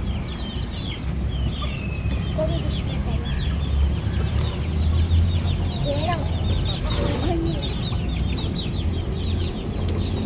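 Chickens clucking: a dense stream of quick high chirps with a few lower clucks, over a steady low rumble.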